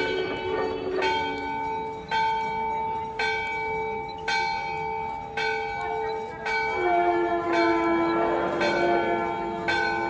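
Hindu temple bell rung for the evening aarti, struck about once a second, each stroke ringing on into the next. A lower held tone joins about two-thirds of the way through.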